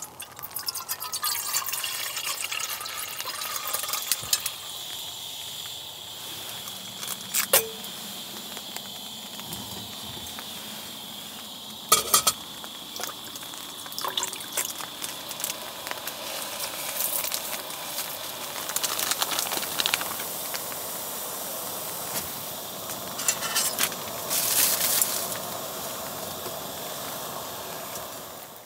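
Food cooking in a pan: a steady sizzling, bubbling hiss of liquid, with a few sharp knocks and clinks of utensils against the pan.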